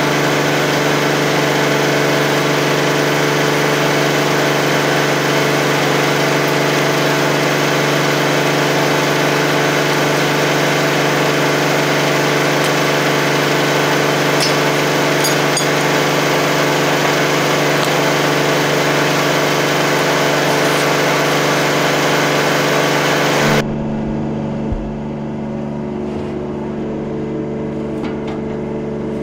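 Pressure washer running steadily at one even pitch, its motor and pump humming under a loud hiss of spray, used to wash scale out of a steam boiler. About 23 seconds in, the hiss drops away and the sound turns duller while the hum carries on.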